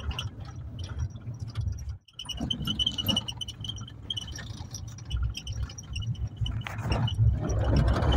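Low engine and road rumble inside a moving car's cabin, with a thin, steady high tone above it. The sound cuts out briefly about two seconds in, and it grows louder near the end.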